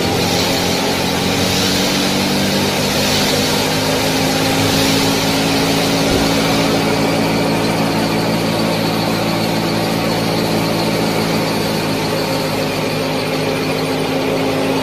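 Small motor-driven model tractor and mini wheat thresher running steadily: a constant mechanical hum with a hiss above it.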